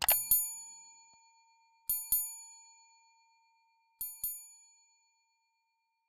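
Bell-like chime sound effect: three quick double dings about two seconds apart, each pair ringing out and fading away.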